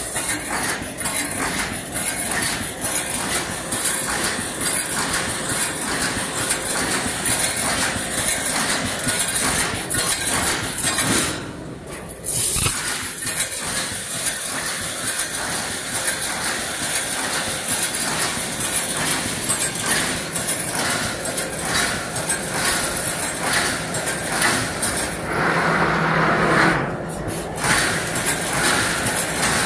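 Wire mesh welding machine running: a continuous mechanical clatter of metallic knocks and clinks.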